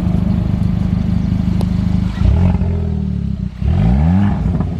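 2021 Kia Forte GT's turbocharged 1.6-litre four-cylinder running with an open downpipe, the exhaust cut off after the turbo. It idles steadily, then is revved in the second half, the pitch rising and falling back near the end.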